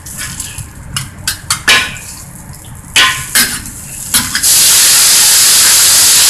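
Metal spatula and ladle scraping and clanking against a steel wok for the first few seconds. Then a loud, steady hissing sizzle starts as liquid hits the very hot wok and flashes into steam.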